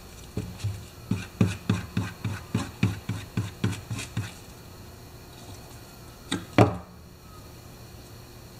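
A quick series of light knocks, about three a second for some four seconds, then two more near the end, from hand work on an old chainsaw's gas tank being patched with JB Weld epoxy.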